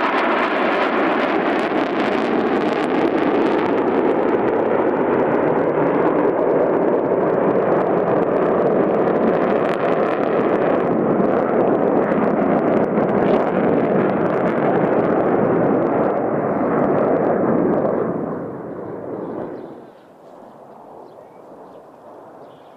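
Jet engines of a four-ship formation of twin-engine fighter jets passing overhead: a loud, steady, crackling rumble that fades sharply about eighteen seconds in to a faint distant hum.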